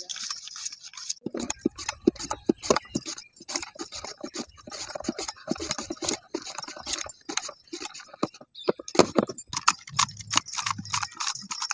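Raw potatoes pushed again and again across the metal blade of a wooden hand slicer, a fast run of scraping clicks, with bangles jingling along.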